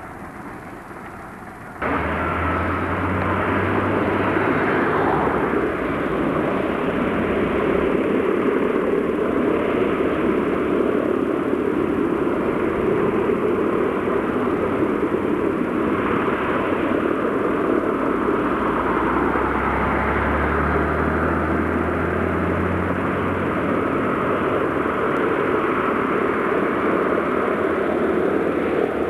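Loud, steady engine roar that starts abruptly about two seconds in, with a low diesel hum swelling twice as vintage coaches drive past.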